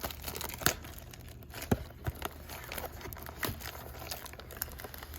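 Packaging of a trading-card blaster box being torn and crinkled open, with scattered sharp crackles of plastic wrap and card stock.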